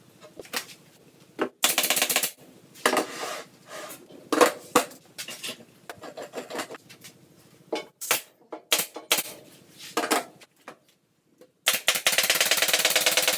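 Hard objects clattering and rattling in short, irregular bursts, with a dense, fast rattle over the last second and a half.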